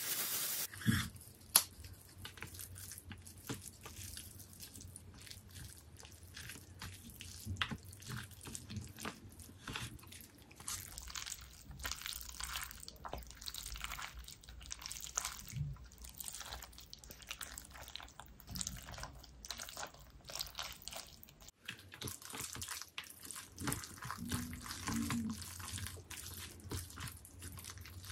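Jjajangmyeon noodles being mixed into thick black bean sauce with wooden chopsticks in a bowl: a continuous run of sticky, wet smacking and small clicks.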